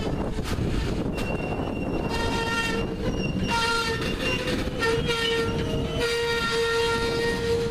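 Air horn of a Ferromex GE ES44AC diesel locomotive sounding a chord in a series of blasts with short breaks, starting about two seconds in, the last blast held longest. Under it runs the low rumble of the moving train.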